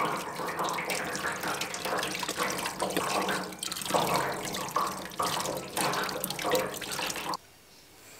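Tap water running and splashing off a large black bolete mushroom cap into a stainless-steel sink while hands rub the slippery cap clean. The water sound cuts off abruptly about a second before the end.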